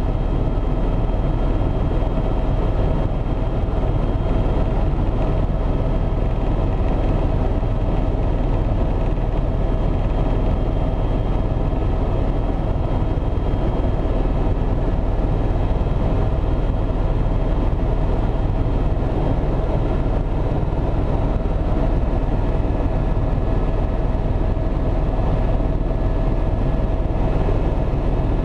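Helicopter engine and rotor running steadily: a loud, even drone with a few constant whining tones over it.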